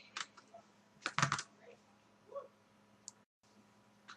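Small sharp clicks and taps of plastic and metal laptop parts being handled and fitted: a few at the start and a quick cluster of louder ones about a second in, then a couple of faint ticks.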